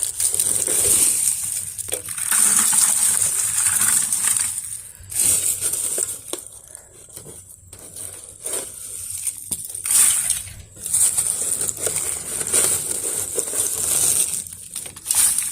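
Wet leaves and debris being scooped by hand out of a clogged gutter: irregular bouts of crunching, crinkling and scraping with short pauses between handfuls.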